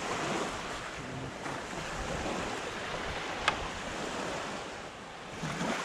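Small waves washing onto a pebble shore as a steady surf hiss, with some wind on the microphone. A single sharp click sounds about three and a half seconds in.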